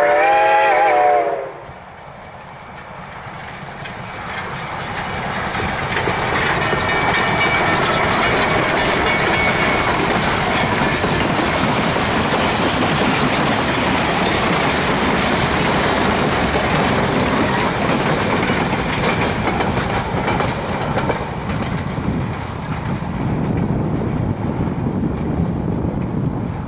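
Durango & Silverton narrow-gauge K-37 steam locomotive #493 sounds its whistle once, a loud chord of about a second and a half, then the locomotive and its passenger cars roll past with steady rumble and clickety-clack of wheels over rail joints. The train noise eases near the end under road traffic noise.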